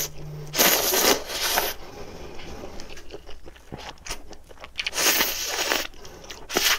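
Ramen noodles being slurped in two long slurps, about half a second in and again about five seconds in, with small mouth and chopstick clicks between.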